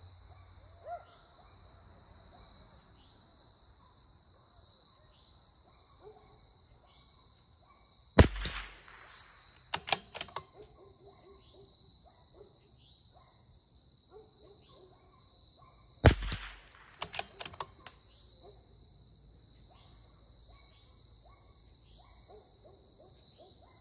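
Two shots from a CZ 457 Varmint bolt-action .22 LR rifle, about eight seconds apart. After each crack, about a second and a half later, comes a quick run of metallic clicks as the bolt is worked to eject the case and chamber the next round.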